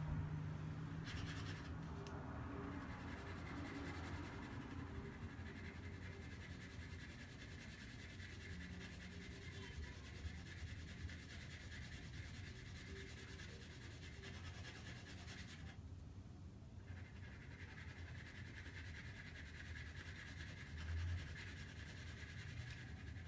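Graphite pencil shading on drawing paper: faint, continuous scratching as the lead is worked over the same spot to build up a dark tone, over a low steady hum.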